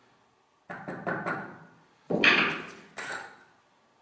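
Knocks on a freshly laid stove brick as it is tapped down into level on its mortar bed: a quick run of light taps about a second in, then a heavier knock with a short ring at two seconds and another at three.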